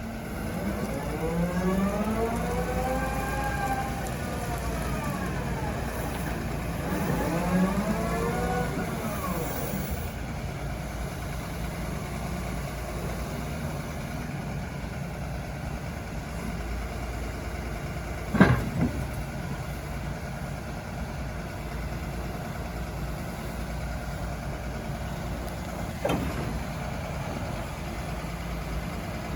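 Hyundai HW140A wheeled excavator's diesel engine revving up and back down twice, then running steadily at idle. Two sharp knocks come through, one past the middle and one near the end.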